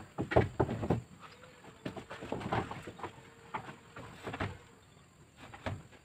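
Meranti wood planks knocking and thudding irregularly as they are lifted, shifted and laid on a wooden rack.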